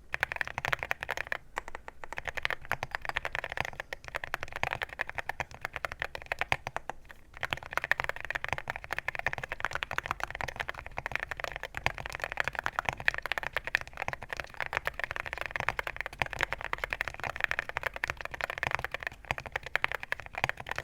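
Fast continuous typing on a Leobog Hi75 mechanical keyboard with 55 g Aqua King switches: a dense stream of key clacks with a few short pauses in the first seven seconds.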